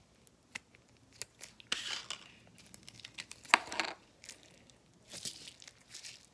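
Slime being stretched and squeezed by hand, giving sticky crackles and small pops as air pockets burst, with one sharp snap about three and a half seconds in.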